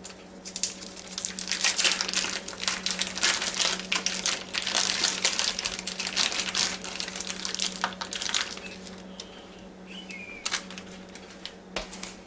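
Thin plastic steak packaging crinkling and rustling as it is pulled off the meat by hand, in dense irregular crackles that thin out to a few after about eight seconds. A steady low hum runs underneath.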